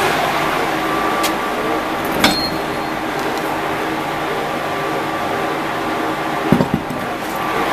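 Horizontal boring mill running with a steady mechanical hum carrying several steady tones. A sharp knock comes about two seconds in, and a couple of low thuds near the end.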